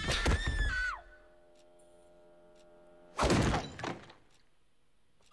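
Horror-film soundtrack: a high sustained cry that bends down and cuts off about a second in, then a quiet held drone of several tones, then a loud thud just after three seconds with a smaller knock after it.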